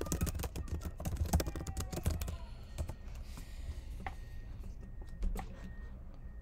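Typing on a computer keyboard: a quick run of key clicks for the first two seconds or so, then a few scattered single clicks.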